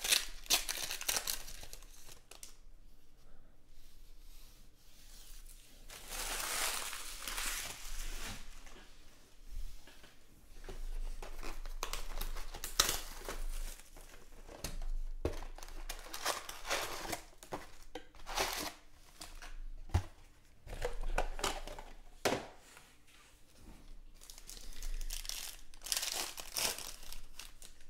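Foil trading-card packs being torn open and crinkled by hand. The crinkling comes in several bursts a few seconds apart, with light taps and clicks between them.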